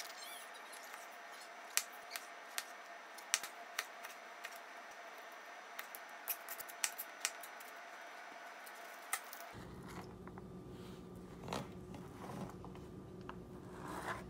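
Chef's knife slicing button mushrooms on a plastic cutting board: sharp, irregular knocks of the blade on the board. About nine and a half seconds in, a low steady hum comes in and sliced garlic is scraped off the board into a frying pan.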